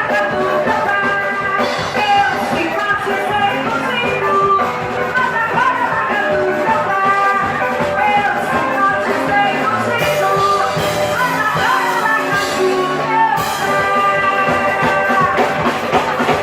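Live frevo played by a band of guitarra baiana, electric guitar, bass and drums, in a fast instrumental passage with quick melodic runs over a driving beat.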